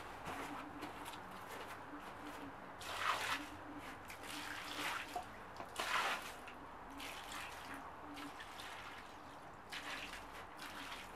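Water poured in several separate splashes onto split firewood and the grass around it.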